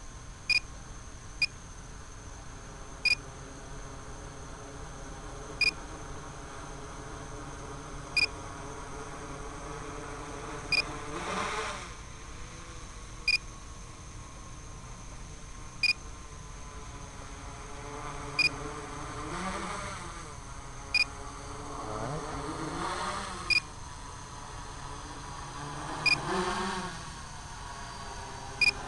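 Tricopter's electric motors and propellers humming overhead, the pitch rising and falling several times as the throttle is worked to bring it down. A short high beep repeats about every two and a half seconds.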